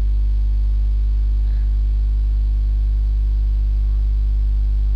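Steady electrical mains hum, a loud low drone with a buzz of evenly spaced overtones above it, running unchanged.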